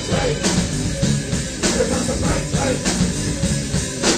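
Hard rock band playing a raw demo recording: electric guitar, bass guitar and drum kit, with regular drum hits through it.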